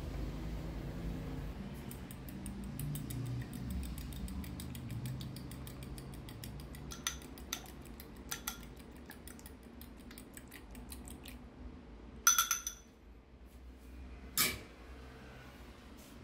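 Kitchen utensils working dough in a bowl: rapid fine scraping and tapping for most of the first eleven seconds, then several sharp metal clinks against the bowl or pan, the loudest about twelve seconds in.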